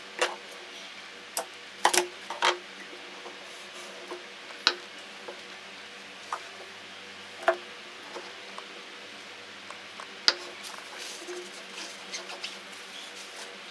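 Handling sounds from a tabletop: irregular light clicks and knocks as a roll of electrical tape, a glass jar and a ceramic saucer are picked up, moved and set down on a wooden board, with a faint steady hum underneath.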